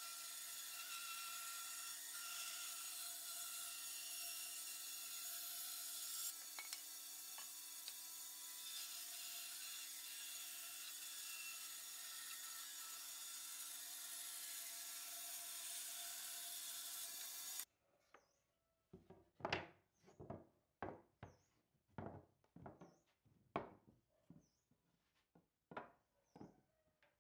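Bandsaw running and ripping a pallet-wood board lengthwise: a steady hiss of the blade cutting over a steady motor hum. It stops abruptly, and a run of about a dozen sharp wooden knocks follows, one or two a second, as the cut boards are set down and handled on a workbench.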